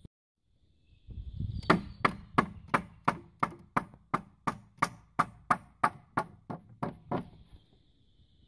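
Even run of about seventeen sharp knocks on wood, roughly three a second, starting a couple of seconds in and stopping shortly before the end. The knocks are on the cedar window frame.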